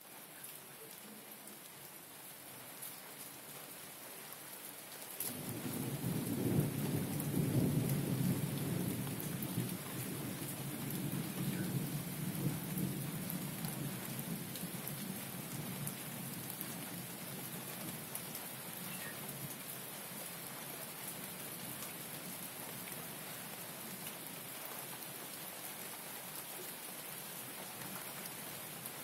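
Steady rain hiss, with a long low roll of thunder that swells about five seconds in and slowly dies away.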